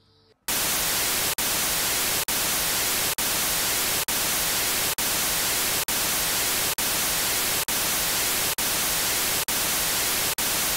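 TV static sound effect: a loud, even hiss that starts suddenly about half a second in, broken by brief dropouts about once a second.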